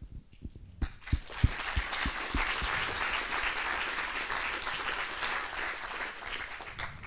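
Audience applauding, starting about a second in and dying away at the end.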